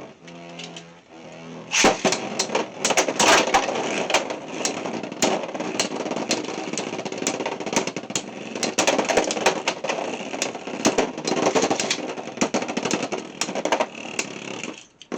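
Two Beyblade X spinning tops battling in a plastic stadium: a dense, rapid rattle of clicks and clacks as they collide and scrape around the stadium from about two seconds in. The rattle stops suddenly near the end, as the battle finishes in a sleep-out.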